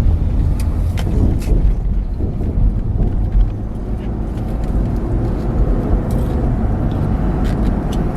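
Car engine idling, heard from inside the cabin as a steady low rumble, with a few light clicks and taps over it.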